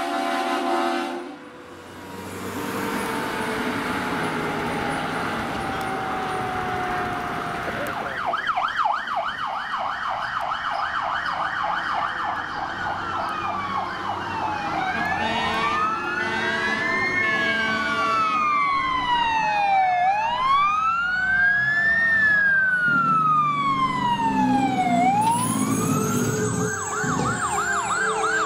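Fire truck sirens: a short blast of air horn at the very start, then a siren tone slowly winding down. From about a third of the way in, an electronic siren runs a fast yelp, changes to a slow rising-and-falling wail, and returns to the fast yelp near the end.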